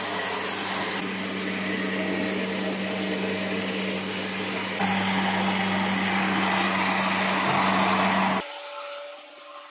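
A household electric appliance's motor running steadily with a constant hum, a little louder from about halfway, then switched off near the end.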